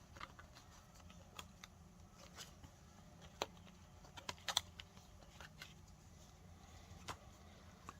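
Faint scattered clicks and taps of thick cardboard game pieces being handled and fitted together, with a short cluster of clicks about halfway through.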